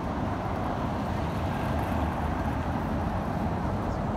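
Steady street noise of road traffic, an even low rumble with no single event standing out.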